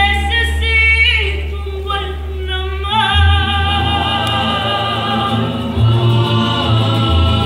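A rondalla singing in harmony over guitars and a deep, sustained bass line that shifts note about three seconds in and again near the end.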